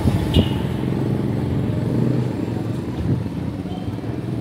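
A small motorcycle engine running as the bike rides past and pulls away, with more motorbike traffic further along the street. A short sharp knock about half a second in.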